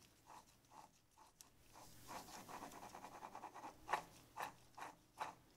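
Ball bearing in a Volvo Penta seawater pump's bearing housing, turned slowly by hand through the crank pulley, giving a faint, rough scratching grind from about two seconds in, with a few sharper scrapes near the end. The bearing is getting noisy, which in these pumps often follows a failed shaft seal letting water wash out its grease.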